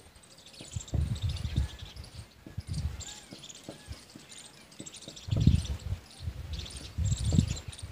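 Insects and birds chirping in the background, a busy run of short high chirps that goes on throughout. Over it come a few brief low thuds and rumbles, the loudest about a second in and again around five and a half seconds.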